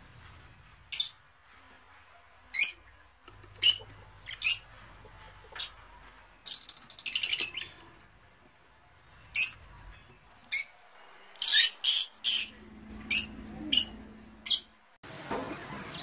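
Small pet parrots chirping: short, sharp, high-pitched calls about a second apart, with a brief burst of rapid chatter about six and a half seconds in. Near the end a steady, noisy background takes over.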